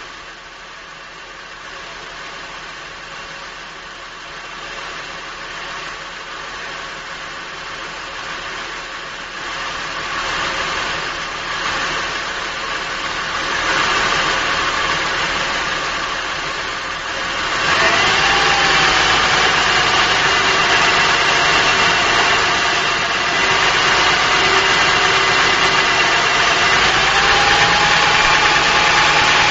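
Acura TL's 3.2-litre V6 idling, heard from under the front wheel well. It grows gradually louder, and about 18 seconds in the level steps up suddenly with a short rising tone and a steady whine added over the idle.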